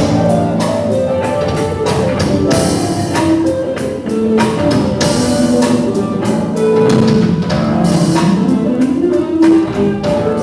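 Music with guitar and drums, a steady beat and held melodic notes throughout.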